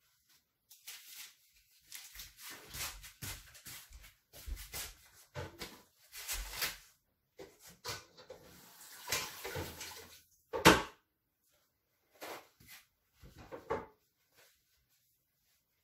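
Irregular kitchen clatter: scattered knocks and scrapes of handled kitchenware, with a short hiss about nine seconds in and one sharp knock, the loudest, at about ten and a half seconds.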